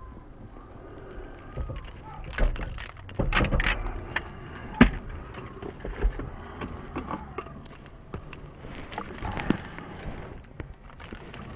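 Irregular knocks and clunks, a few sharp ones standing out, over a low background with faint voices.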